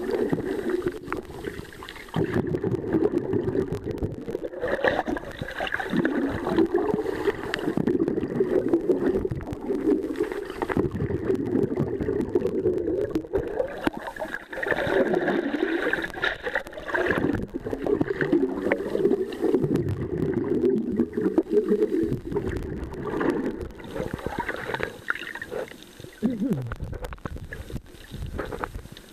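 Muffled underwater rushing and gurgling of water as a swimmer moves along, heard from below the surface, swelling and easing every few seconds.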